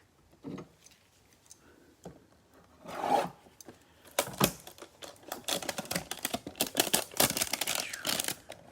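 A trading card hanger box's packaging being torn open, with dense crinkling and tearing. It starts softly, then turns into a busy crackle from about four seconds in.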